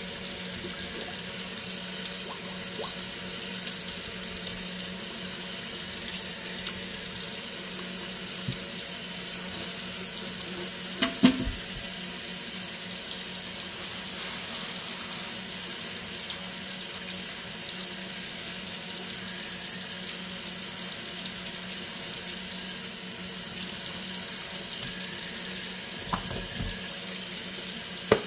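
Kitchen faucet running steadily into a stainless steel sink. There is a sharp knock about eleven seconds in and a few lighter knocks near the end.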